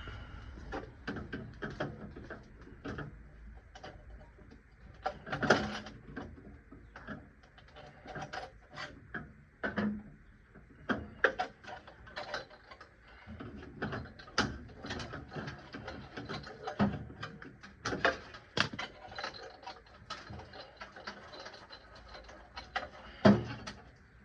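Hand tools being worked on a car: irregular metallic clicking and ratchet-like ticking, with a few sharper knocks about five seconds in and near the end.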